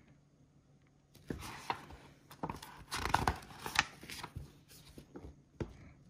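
Pages of a glossy paper catalogue being turned by hand: paper rustling and crackling with sharp snaps, starting about a second in.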